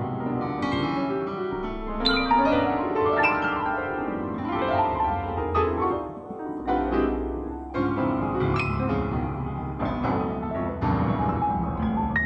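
Instrumental piano music: struck notes ring out one after another over held low bass tones.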